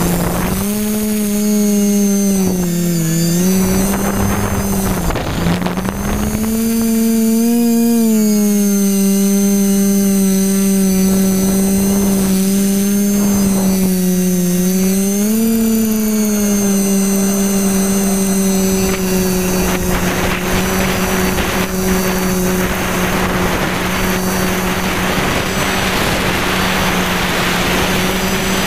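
Multicopter's electric motors and propellers humming as it takes off and climbs, the pitch dipping and rising a few times with throttle changes before settling into a steady drone. Wind noise on the onboard camera's microphone grows in the second half.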